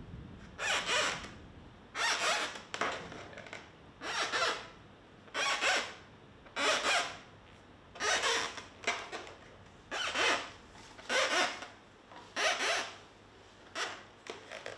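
Marker pen squeaking on an inflated latex balloon as it is drawn across the rubber in short strokes, about one a second.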